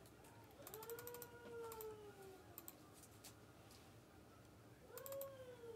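A faint, eerie, drawn-out whine heard twice, each rising and then slowly falling in pitch: the first lasts about two seconds and the second is shorter near the end. A few light clicks come between them.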